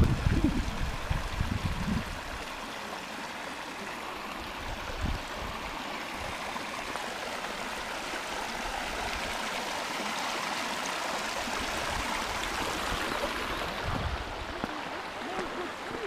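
Shallow mountain stream running over gravel and stones: a steady rushing of water. Wind buffets the microphone with a low rumble during the first two seconds.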